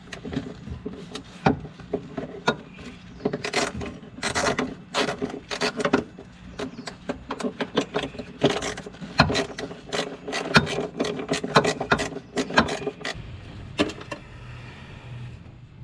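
Hand tools and hard car parts clicking, knocking and rattling irregularly while a fuel filter mount is refitted in a car's engine bay. The knocking dies away about two seconds before the end.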